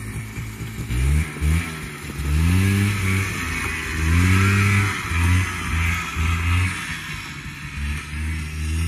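Four-wheeler (ATV) engine revving in repeated throttle bursts, its pitch rising with each blip, then a few short choppy blips.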